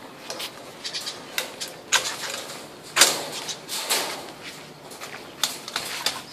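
Budgerigars chirping and chattering in quick, short, high-pitched calls, with one louder sharp sound about halfway through.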